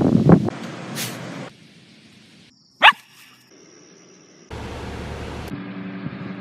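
Shetland sheepdog barking a couple of times near the start, then a single short, sharp sound rising in pitch about three seconds in. The sounds break off abruptly between quick clips.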